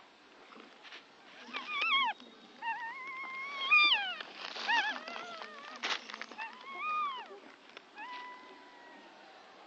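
Newborn puppies, about three days old, crying with high, mewing squeals: a run of short bending cries and a few longer held ones.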